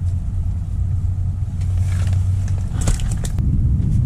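Strong wind buffeting the microphone, a steady low rumble. About two seconds in come a few sharp clicks and scrapes of handling.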